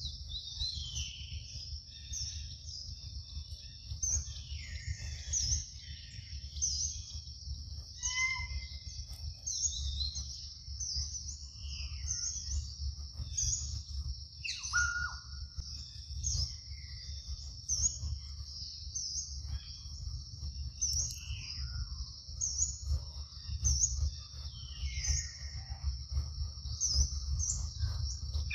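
Outdoor ambience of birds chirping and calling, over a steady high-pitched buzz that carries a regular chirp a little more than once a second. A low rumble runs underneath.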